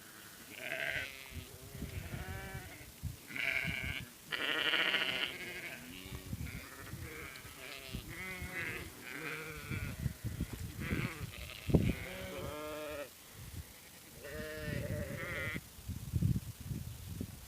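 Sheep bleating, several animals at once: a dozen or so wavering calls at different pitches, some high and some low, often overlapping.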